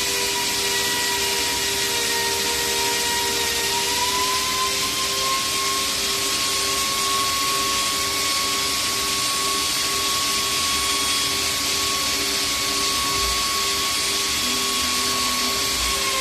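AccTek AKM1325 CNC router running: a steady mechanical whine over constant hiss, its pitch stepping slightly about four seconds in, with a lower pulsing hum underneath.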